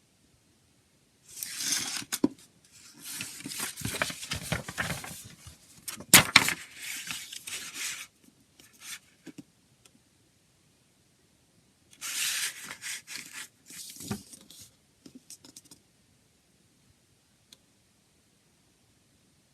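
Plastic wrapping being torn and crinkled off a CD case, in two spells of rustling with a few sharp clicks.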